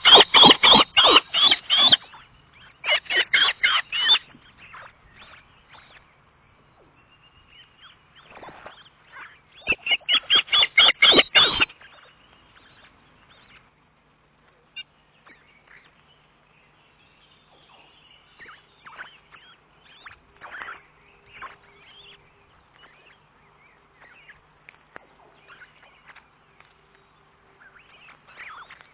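Osprey calling: bursts of rapid, shrill repeated whistled notes, about five a second, three runs within the first twelve seconds, then only faint scattered chirps.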